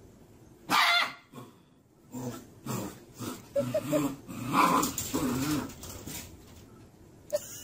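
Husky puppy growling and yipping in play at its own reflection: one sharp bark about a second in, then a run of short growls and yips over the next few seconds.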